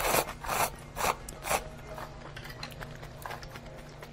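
Someone slurping hot kalguksu noodle soup in four or five quick, noisy pulls during the first second and a half. After that there are only a few light clicks over a steady room hum.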